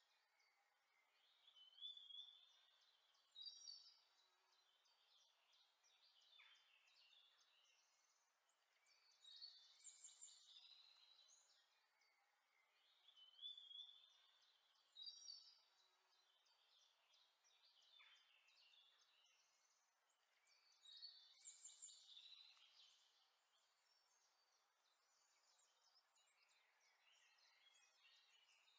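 Near silence with faint birdsong: small birds chirping and trilling in short bursts, the same pattern of calls coming round about every 12 seconds.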